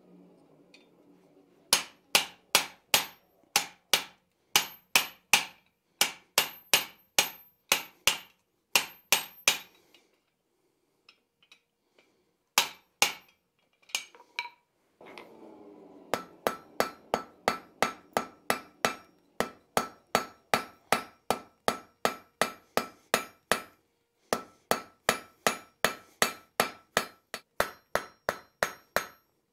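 Hand hammer striking red-hot steel at the anvil, shouldering and drawing out a tang: first on a guillotine tool set on the anvil, then directly on the anvil face. The blows come in steady runs of about three a second, each with a metallic ring, broken by a few seconds of only scattered blows in the middle.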